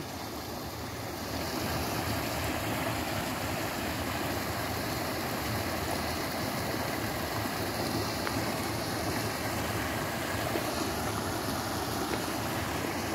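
Creek water pouring over a small drop into a pool, a steady rushing with no pauses.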